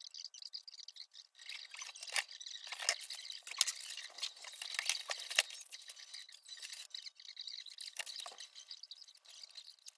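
Light rustling and clicking as laser-cut wooden model-aircraft kit parts and paper instruction sheets are handled. A flurry of sharper clicks comes from about two to five and a half seconds in.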